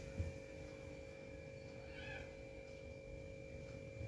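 Knife cutting through a soft steamed cake, with one soft knock on the plate near the start, over a faint steady electrical hum. About halfway through there is a brief faint high squeak.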